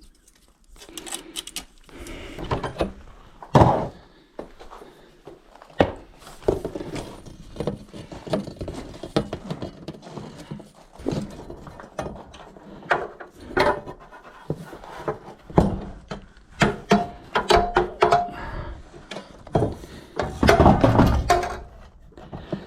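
Irregular knocks, clinks and scrapes of steel 1/2-inch EMT conduit and hand tools being handled, with a few short metallic ringing tones in the second half.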